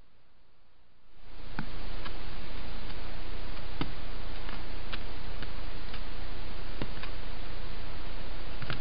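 Stealth Cam trail camera's own recording: a steady loud hiss with a low hum from its microphone, starting about a second in, with scattered sharp clicks and ticks as a deer moves up close to the camera.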